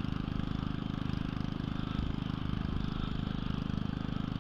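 A small combustion engine running steadily at an even speed, with a rapid, regular firing pulse.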